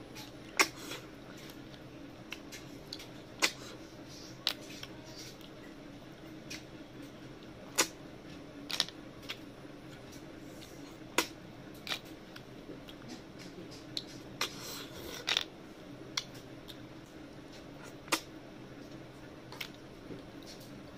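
Mouth sounds of eating river snails and rice by hand: irregular sharp sucks and lip smacks every second or two, with a couple of longer slurps about nine and fifteen seconds in.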